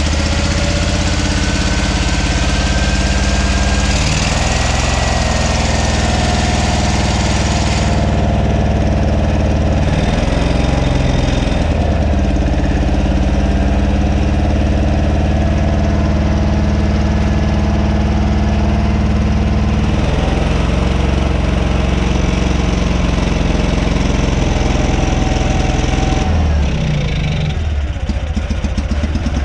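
John Deere 317 garden tractor's Kohler KT17 twin-cylinder engine running at idle just after starting on a newly fitted replacement carburetor. Its speed shifts and dips and recovers a few times as the carburetor and throttle are worked. It runs, but not at its best, and still needs fine-tuning.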